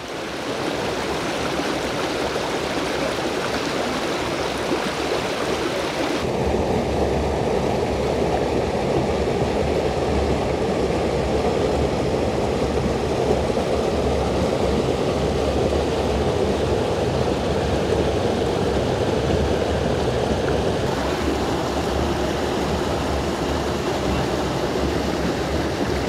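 Creek water rushing over boulders and small falls, a steady rushing that turns abruptly deeper about six seconds in.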